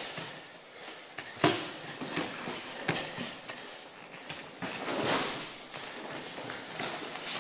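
Aikido throws on foam mats: bare feet shuffling and stamping, and bodies slapping down onto the mat in breakfalls, a handful of sharp thuds with the loudest about one and a half seconds in.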